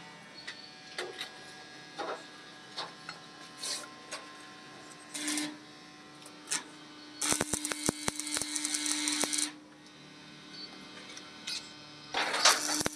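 Metalwork on a tractor's chain-mesh bumper guard: scattered metallic clicks and clinks, then a burst of dense crackling with rapid clicks about seven seconds in that lasts some two seconds. A steady hum comes in about five seconds in, and another crackling burst starts near the end.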